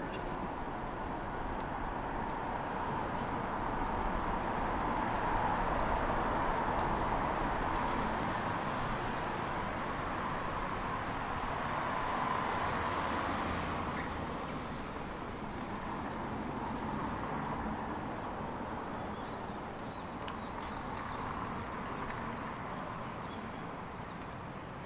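City street traffic: cars passing on the road, their noise swelling and fading as they go by. There is a sharp click about a second in.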